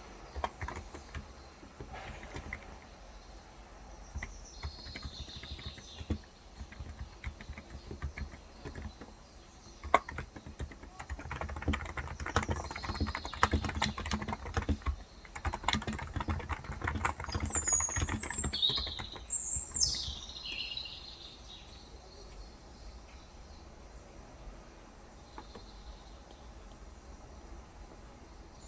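Typing on a Cox Endeavor electro-capacitive (non-contact) tenkeyless keyboard with light 35 g switches, in uneven spurts that are busiest in the middle and thin out over the last third. Birds chirp over it at times, most clearly a run of sweeping chirps a little past the middle.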